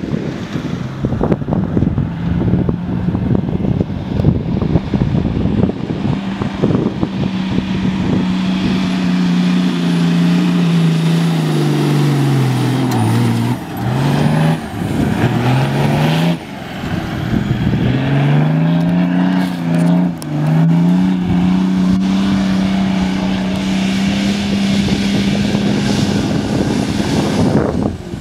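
Toyota Land Cruiser HDJ100's straight-six turbo diesel on an open exhaust, working hard under load up a sand dune. Its note holds steady, then about halfway through the revs sag twice and climb back, and it runs steady again.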